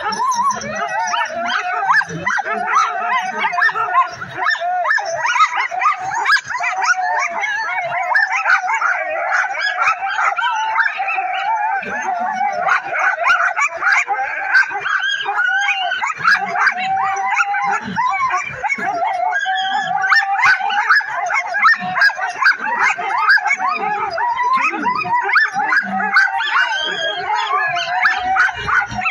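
A team of harnessed sled dogs barking, yipping and howling together without a break, straining to run while held at the start line.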